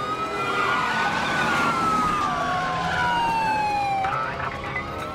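Police car siren wailing: one slow rise and fall, rising again about four seconds in, over the rush of cars speeding past.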